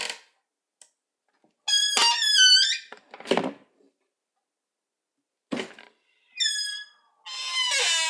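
Creaky cabinet door hinges squeaking as the door is opened and closed, with wavering high-pitched creaks and two dull knocks as the door bumps shut. A long creak begins near the end.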